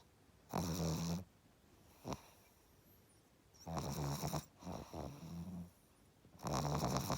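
A sleeping boy snoring: about four rasping snores, each about a second long, spaced two to three seconds apart, with quiet breathing between.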